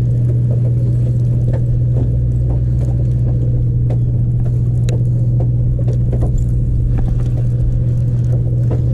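A boat engine running steadily: an unbroken low drone with a few faint clicks scattered over it.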